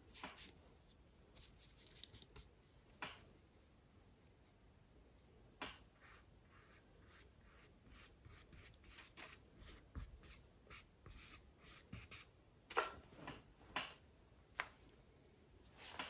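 Faint, scratchy strokes of a paintbrush dabbing acrylic paint onto canvas in short, irregular touches, with a few louder scrapes near the end.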